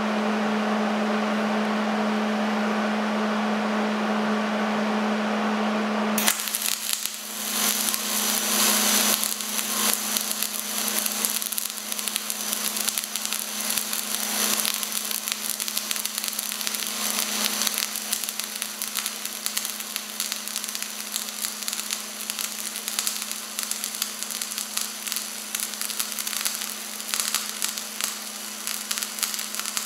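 A welding machine hums steadily for about six seconds. Then the arc strikes and 0.035 dual-shield flux-core wire welds uphill with a continuous crackling sizzle.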